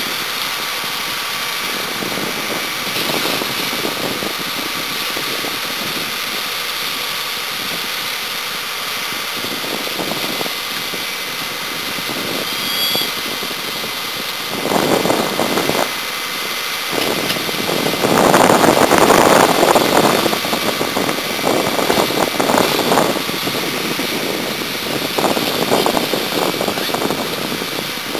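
A burning semi-trailer truck with a fire engine's motor running steadily. About halfway through come several louder bursts of hissing and crackling; the longest lasts about two seconds, around two-thirds of the way in.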